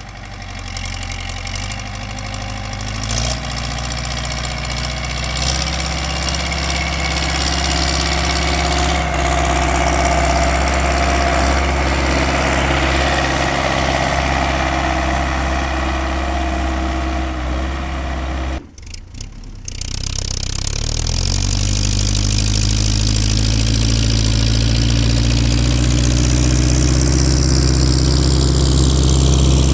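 MTZ-82 tractor's four-cylinder diesel engine running steadily, slowly growing louder. About two-thirds of the way through the sound breaks off suddenly for about a second, then the engine comes back louder.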